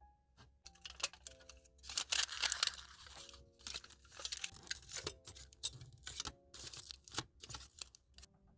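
Aluminium foil crinkling and crackling as sheets are pressed and crimped down around the rims of steel pudding cups, loudest about two seconds in. Soft background music plays underneath.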